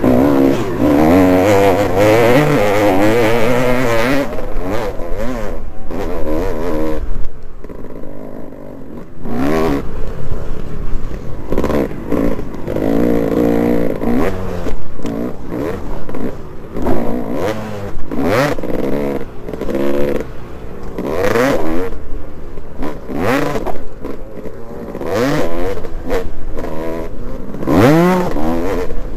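Motocross dirt bike engine heard from on board, revving up and dropping back over and over as the rider accelerates and shifts around the track.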